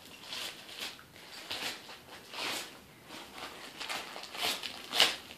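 Dogs ripping and rustling the paper wrapping off presents: a run of short, irregular tearing and crinkling sounds, with the loudest one near the end.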